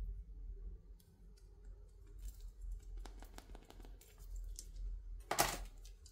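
Hands working toy packaging: small plastic clicks and crinkles, a quick run of them about three seconds in, then one louder crinkling rustle about five seconds in.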